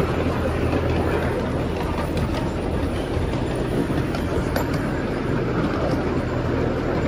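Steady running rumble of a small park train, heard from aboard, with a few light clicks along the way.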